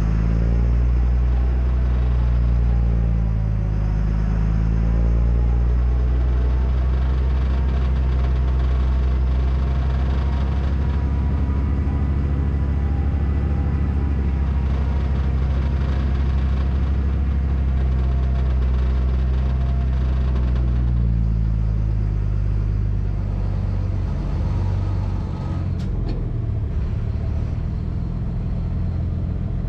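Heavy tow truck's diesel engine running as it drives slowly down a steep narrow road, with a deep steady drone whose pitch changes a few times as the driver eases on and off the throttle.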